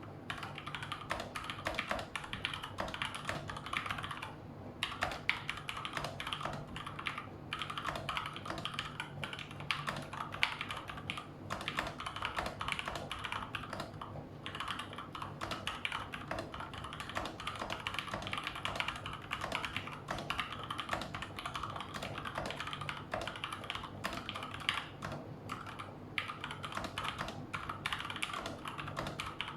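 Cooler Master CK550 V2 mechanical keyboard with Gateron Red linear switches being typed on quickly and steadily, a dense run of key clicks and clacks with a few brief pauses.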